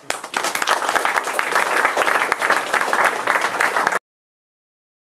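Audience applauding: a few scattered claps grow quickly into steady applause, which cuts off suddenly about four seconds in.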